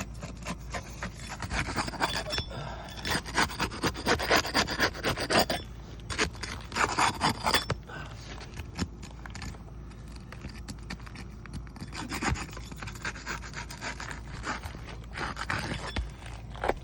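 Roof shingles being scraped and pried loose, a tool rasping and ticking against them in bursts, busiest in the first half. This is the loosening of the shingles so a creased one can be pulled and replaced.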